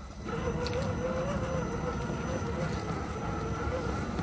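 Small electric motor and gearbox of an RC crawler whining steadily, its pitch wavering slightly as the truck drives.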